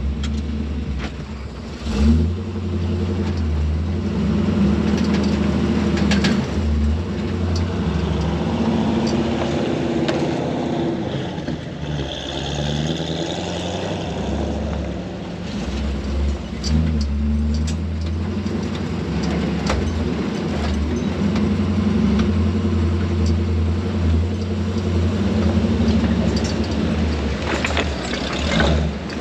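Pickup truck engine running steadily at low speed while crawling over a rocky trail, with occasional sharp knocks and bumps, the loudest about two seconds in.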